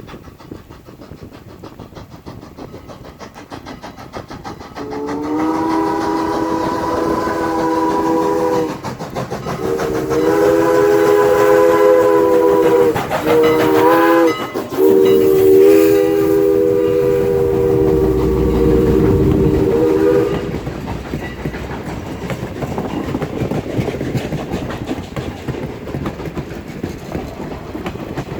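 Steam locomotive's multi-note chime whistle blowing two long blasts, a short one and a long one, the grade crossing signal, over the steady running noise of the passing train with a low rumble near the last blast.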